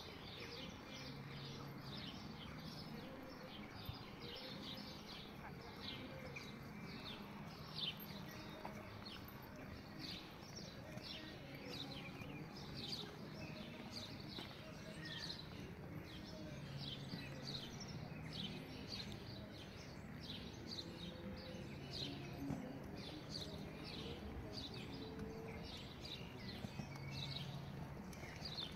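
Birds chirping and twittering continuously over faint outdoor background noise, with a low murmur of distant voices.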